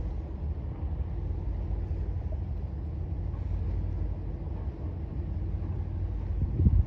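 Steady low outdoor rumble of wind buffeting the microphone, with a stronger gust near the end.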